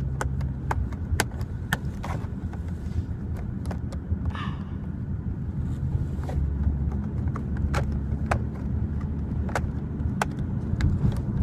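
Irregular sharp clicks and rustles of a Rubik's Cube package being opened and handled, over a steady low rumble.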